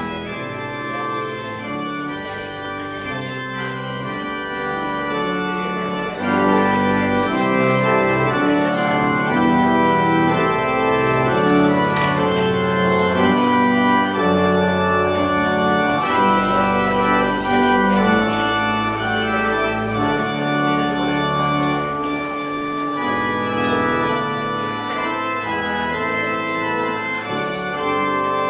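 Church organ playing slow, sustained chords, growing louder about six seconds in.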